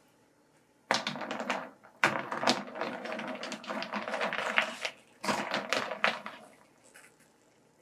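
Wire-mesh skimmer scooping boiled edible white snails out of a pan: the shells clatter and click against each other, the mesh and the pan in three bouts of rapid clicking.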